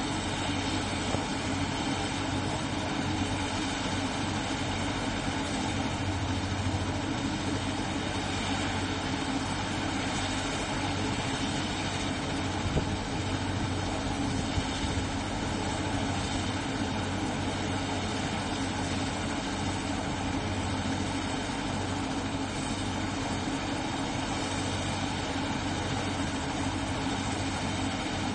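Rescue helicopter's turbine engine running at ground idle with the main rotor turning slowly: a steady drone.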